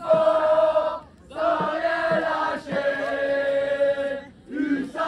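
Choir singing a slow song in long held notes, phrase by phrase, with short breaks about a second in and again near the end.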